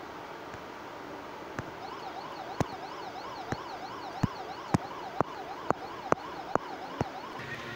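A siren-like warbling tone, rising and falling about three times a second, starts about two seconds in and stops near the end. Sharp clicks come about every half second alongside it.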